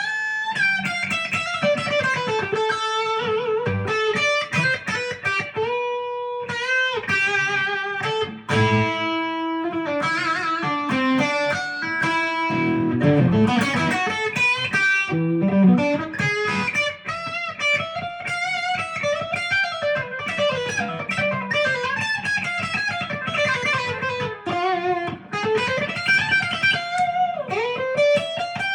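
Epiphone Les Paul Custom electric guitar, new and played straight from the box, playing lead lines of quick single notes with string bends.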